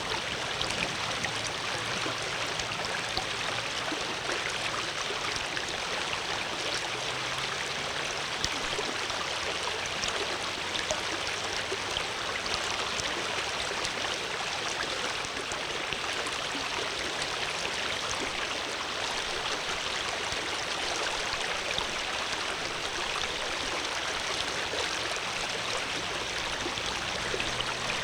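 Water flowing steadily in a stream, a continuous rushing and trickling with small splashes.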